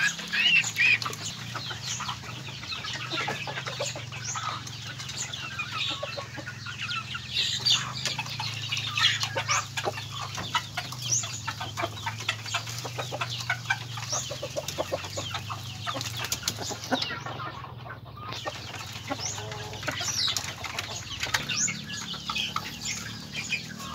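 Native chickens clucking as they peck feed from small plastic feeder cups, with many quick taps of beaks against the cups.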